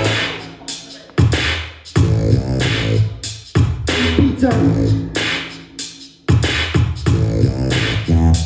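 Loud electronic music for popping with a heavy bass, coming in as sharp stop-start hits that fade away, with sudden re-entries at about a second in, two seconds in, three and a half seconds in, and a deeper fade just before six seconds in.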